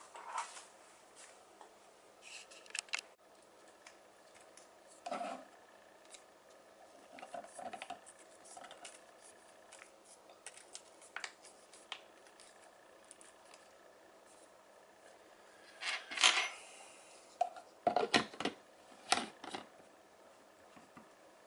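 Plastic hair-dye bottle and its pump cap handled on a wooden desk: scattered light clicks and rustles, then a louder run of sharp clicks and knocks in the last few seconds as the pump cap is fitted and screwed on.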